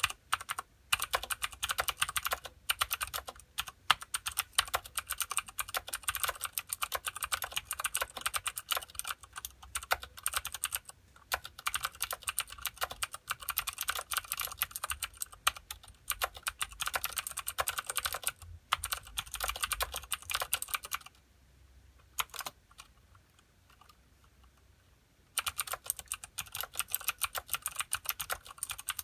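Typing on a Filco Minila mechanical keyboard with clicky Cherry MX Blue switches and thin ABS Dolch keycaps: a dense, continuous run of keystroke clicks. The clicks stop for about four seconds late on, with only a couple of strokes in the gap, then resume.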